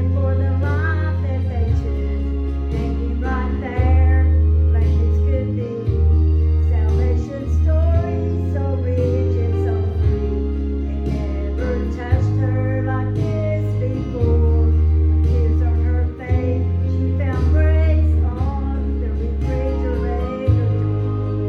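A solo gospel song with instrumental backing: a singing voice over guitar and a steady bass line.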